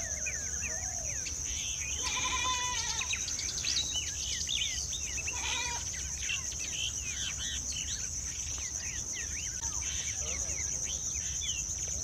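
Outdoor bird and insect chorus: a steady high-pitched insect drone, like crickets, under many quick falling chirps from small birds. Two louder, lower calls stand out about two and five and a half seconds in.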